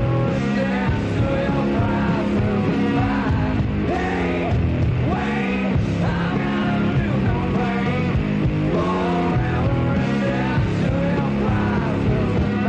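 Rock song playing, a singing voice over a full band.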